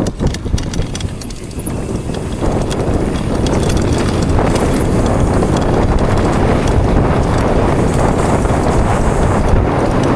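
Mountain bike rattling down a rough, rocky trail: tyres crunching over stones and the bike clattering with many small knocks. It grows louder and steadier about two and a half seconds in.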